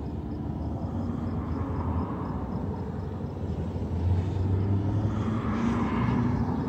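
A car driving past, its engine and tyre noise swelling to a peak near the end over a steady low traffic rumble.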